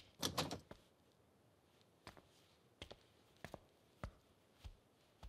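Faint footsteps on a hard floor, single steps evenly spaced about every 0.6 seconds, as someone walks into the room. They follow a brief, louder sound at the very start.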